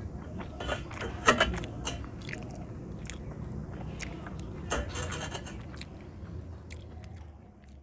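Close-miked eating by hand: wet chewing, lip smacks and mouth clicks as rice and fish curry are eaten, with fingertips scraping the last grains off a brass plate. One sharp click about a second in is the loudest, another just before the five-second mark, and the sounds die away near the end.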